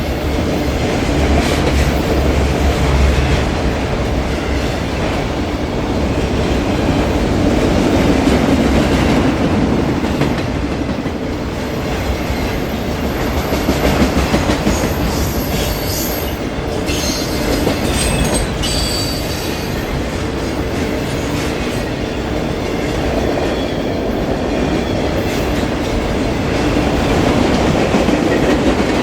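Freight train cars rolling past: a steady rumble of steel wheels on rail with rapid clicks over the joints, and thin high wheel squeals around the middle.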